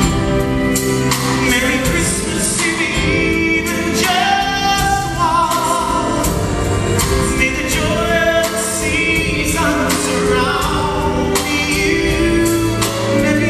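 A male vocalist singing a Christmas song live into a microphone, with instrumental accompaniment beneath the voice.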